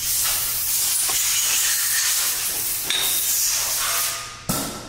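Pressurised spray hissing steadily for about four seconds, starting abruptly and tailing off near the end.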